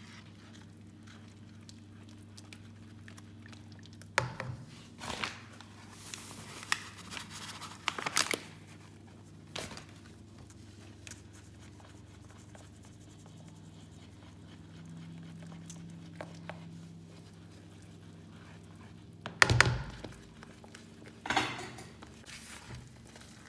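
Metal mesh sieve knocked and shaken against a pan while flour is sifted in: scattered clicks and knocks, then a louder thunk near the end. A low steady hum runs underneath.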